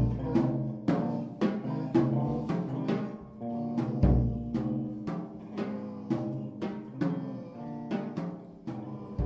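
Drums and percussion played live, struck about twice a second over ringing pitched notes, with a deep bass-drum hit about four seconds in.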